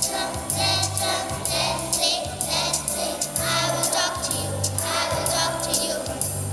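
Children singing together as a group, over an instrumental accompaniment with repeating bass notes and a steady beat.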